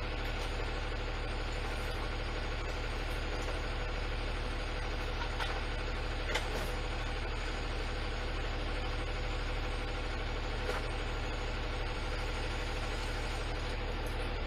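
Garbage truck's engine idling, a steady low hum heard from inside the cab, with a few faint clicks.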